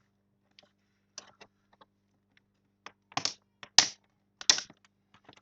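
Sharp plastic clicks and snaps from a laptop's plastic screen bezel being pried off its clips, a few scattered at first and several louder ones in the second half.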